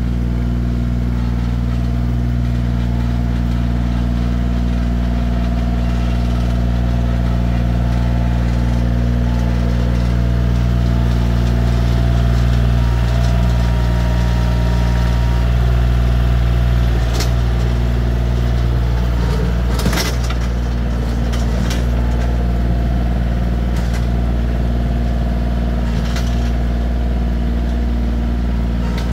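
Bobcat CT2025 compact tractor's diesel engine running steadily as the tractor works with its toothed front loader bucket. Several sharp knocks sound in the second half.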